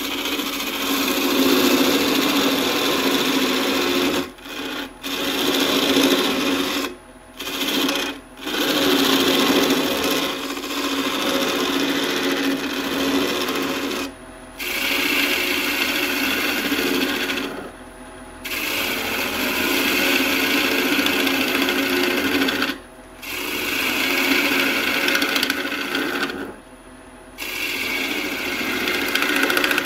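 Turning tool cutting spinning birch on a wood lathe: a steady scraping hiss, broken by several short pauses as the tool comes off the wood.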